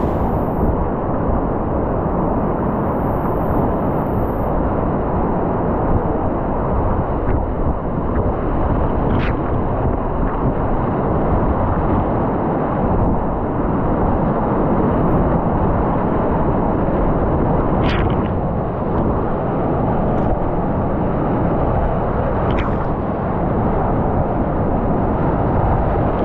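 Loud, steady rush of whitewater rapids heard from a kayak running through them. A few brief sharp splashes cut through, the clearest about halfway and twice near the end.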